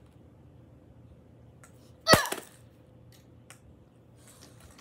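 Garden hose with a metal coupling striking a laptop's shattered screen: one sharp, loud smack about two seconds in, with a few faint taps before and after it.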